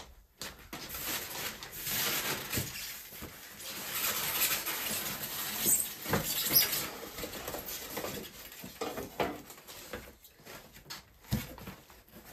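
Cardboard packaging cap being lifted off a boxed dishwasher, rustling and scraping against the polystyrene packing, with two short high squeaks about six seconds in. Quieter handling knocks follow.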